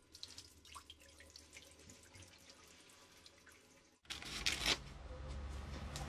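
Faint scattered ticks and clicks, then about four seconds in a short, loud rip of newspaper being torn by hand, followed by a steady hiss over a low hum.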